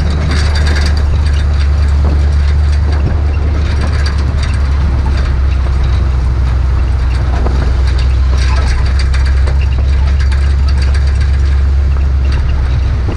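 The fuel-injected 427 cubic-inch big-block Chevrolet V8 of a 1969 Chevrolet C60 dump truck running under load while driving, a loud, steady, low drone. The drone falls off just before the end.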